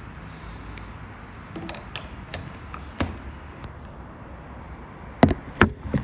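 A smartphone being handled and set in place, making scattered light taps over a low steady hum, then a few sharp knocks near the end.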